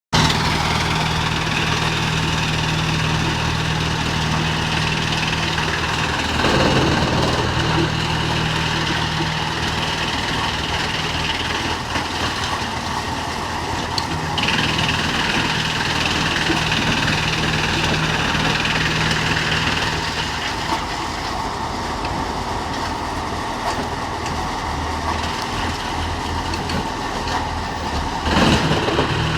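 Drum wood chipper running steadily with a constant hum and a high whine. It gets briefly louder and rougher twice, about seven seconds in and again near the end.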